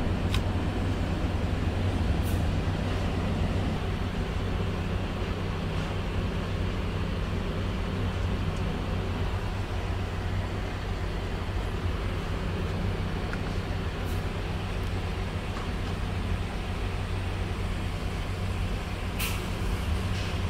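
A vehicle engine running steadily, with an even low hum under a constant hiss.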